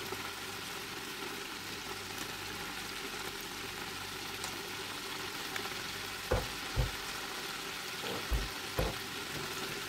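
Battered pollock fillets deep-frying in an electric deep fryer: a steady sizzle of bubbling hot oil. About six seconds in come four dull low thumps, in two close pairs.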